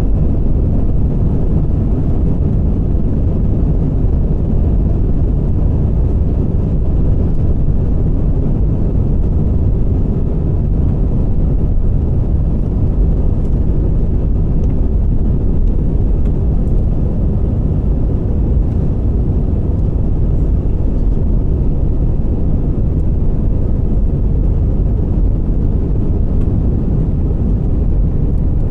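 Airbus A320 cabin noise heard from a passenger seat: the steady, loud, low rush of the jet engines and airflow, unchanging throughout.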